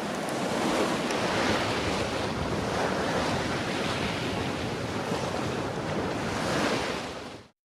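Wind noise on the microphone mixed with the rush of sea water along the hull of a sailing yacht under sail in about 16 knots of wind, steady, then fading out to silence near the end.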